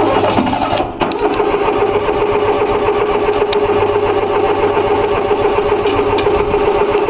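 Three-cylinder Yanmar diesel being cranked over by its electric starter in a long steady crank, with a brief break about a second in, without catching. The owner puts the failure to start down to not having bled the fuel lines.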